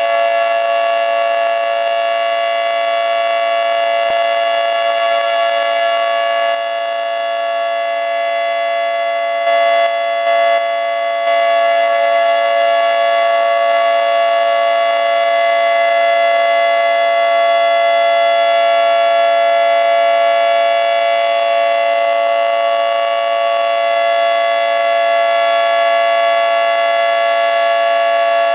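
Federal Signal 2T22 two-tone outdoor warning siren, newly restored, sounding loudly during a test. It holds a steady chord of two pitches without rising or falling.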